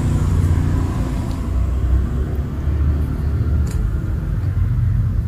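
A steady low rumble, with a few faint brief ticks over it.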